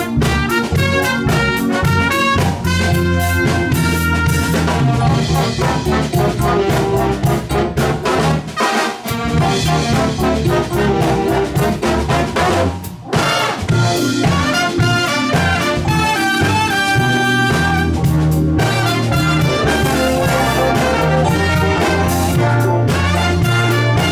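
Jazz big band playing live: trumpets, trombones and saxophones together over electric guitar, keyboard and drum kit. The sound drops out briefly twice, about nine and thirteen seconds in.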